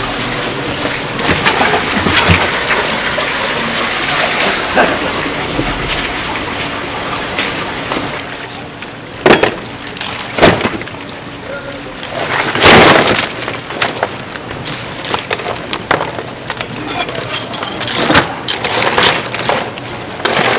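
Steady spattering and splashing noise of water and wet handling at a seafood stall, broken by a few loud knocks and clatters, the loudest about nine, ten and a half and thirteen seconds in.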